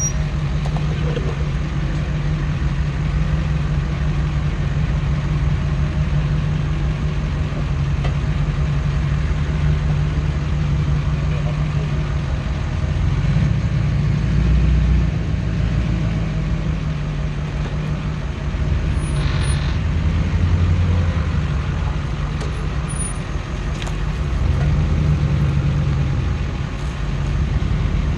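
Duramax turbodiesel pickup engine running at low revs as the truck crawls over a dirt forest trail, with a steady low drone that swells under load a few times.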